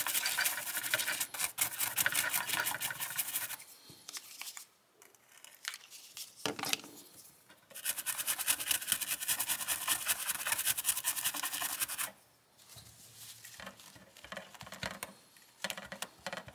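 Stiff bristle brush scrubbing the solder side of a circuit board in quick back-and-forth strokes, cleaning flux residue off freshly reflowed solder joints; the scratchy scrubbing comes in two long spells with a pause around four to six seconds in. Quieter rubbing follows, ending with a cloth wiping the board.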